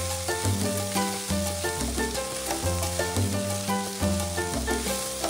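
Background music, a melody over a bass line, over chicken pieces sizzling in oil in a nonstick wok as they are stirred with a wooden spoon and browned.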